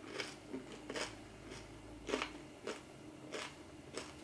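Chewing a crisp baked tofu nugget coated in crushed corn flakes: a string of crunches, a little more than one a second.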